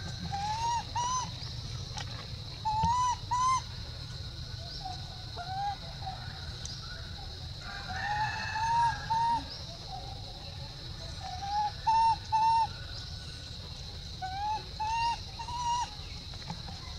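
Baby long-tailed macaque giving short, rising-and-falling whimpering cries, mostly in pairs or threes, repeated about six times. A steady high whine runs underneath.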